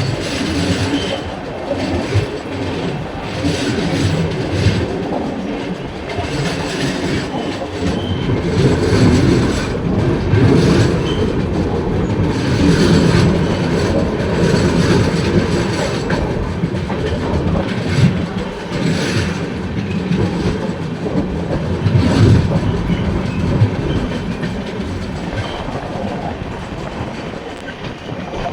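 Train running along the track: a steady rumble with the clickety-clack of wheels over rail joints, louder in the middle and easing off near the end.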